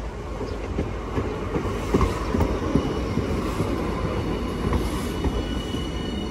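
Hiroshima Electric Railway 1000-series (Green Mover LEX) low-floor tram passing close by on a curve, its wheels rumbling with a few clicks over the rail, loudest about two seconds in. A thin high wheel squeal from the curve sounds through the second half.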